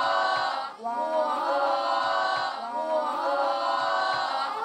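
Wordless choir singing in three long held phrases.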